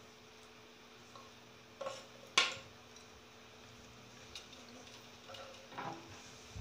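Plastic ladle stirring chicken curry in a pan, knocking lightly against the pan a few times, the sharpest knock about two and a half seconds in, over a faint steady hum.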